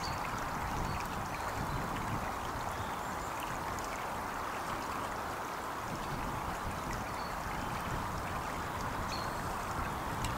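Stream running steadily: a continuous even rush of water.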